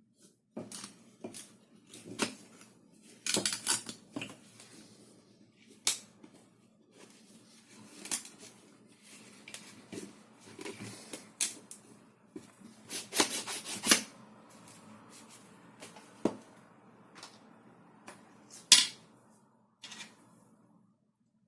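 3D-printed plastic gun parts being handled and fitted together: irregular clicks, knocks and short scraping rustles at an uneven pace, the loudest a single sharp click late on.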